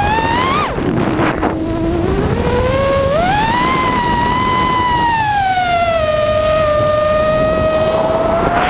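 Racing quadcopter's four EMAX RS2205 2600kv brushless motors spinning three-blade 5-inch props, heard from the drone itself as a buzzing whine over wind rush. The pitch climbs, then drops sharply just under a second in as the throttle is cut and stays low for about a second. It rises again around three seconds in and eases down to a steady cruise.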